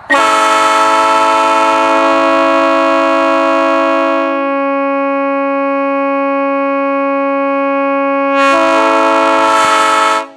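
Multi-chime railroad air horn with bronze diaphragms blowing one long chord of several notes. About four seconds in some chimes drop out and the chord thins, the way a horn sounds when quilled on partial air; near the end the full chord comes back before the horn cuts off.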